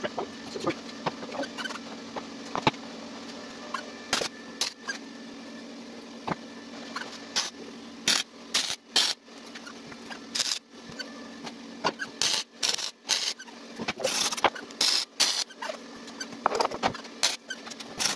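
MIG welder tack-welding steel sheet: short bursts of arc crackle, a fraction of a second to about half a second each, starting about four seconds in and coming more often towards the end, over a steady low hum.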